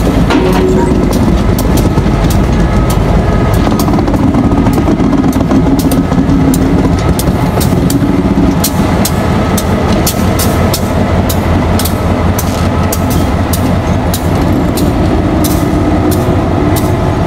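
EMD GP15-1 diesel-electric locomotive's 12-cylinder engine running loudly as it rolls slowly by at close range, pulling freight cars, with many sharp clicks and clanks from the wheels on the track.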